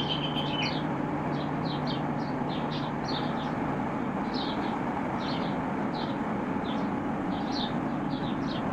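Steady low hum and rushing noise of an Indian Railways WAP-5 electric locomotive standing at a platform, with small birds chirping over it again and again.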